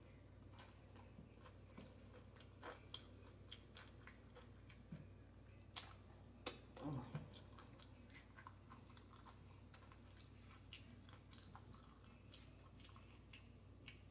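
Faint close-miked chewing and wet mouth clicks of someone eating a taco salad with tortilla chips, with scattered soft crunches; a few louder clicks come about six to seven seconds in.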